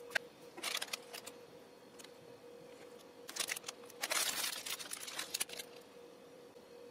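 Thin plastic food wrapper crinkling and tearing as hands pull it open, in short rustling bursts with the longest and loudest about four seconds in. A faint steady tone runs underneath.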